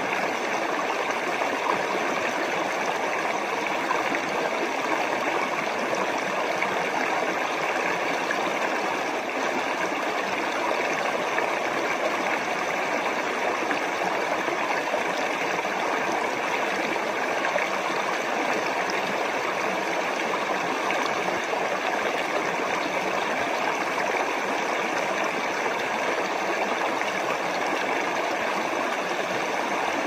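Spring-fed forest stream running over rocks: a steady, unbroken rush of water.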